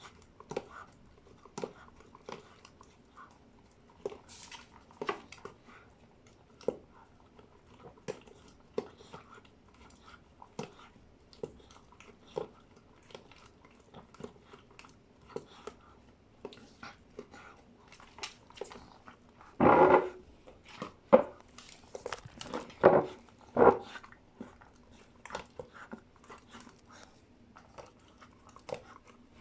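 Dog chewing and crunching its food in irregular bites, with a run of louder crunches about twenty seconds in.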